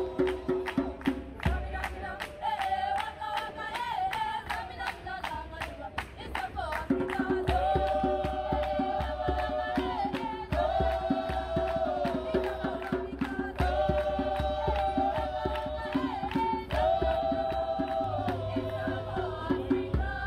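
Background music: voices singing long held notes over a fast, steady percussion beat and bass. It stops at the very end.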